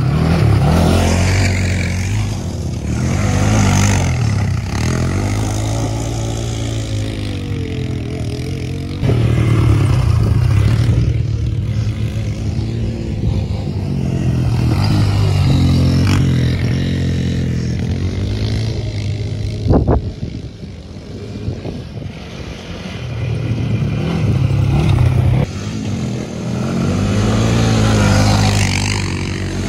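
ATV engines running and revving as the quads are ridden over dirt and grass, the engine pitch rising and falling with the throttle. The sound changes abruptly about 9 and 25 seconds in, and there is a sharp knock about two-thirds of the way through.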